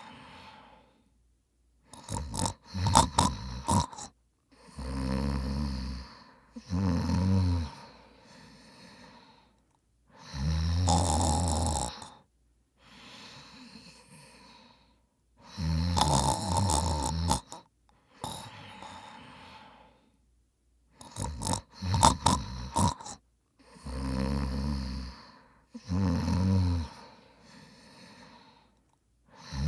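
A man snoring in his sleep: loud rasping snores of about a second and a half, mostly in pairs about two seconds apart, with quieter breaths between them. Twice, a quick run of short sharp snorting sounds breaks the rhythm.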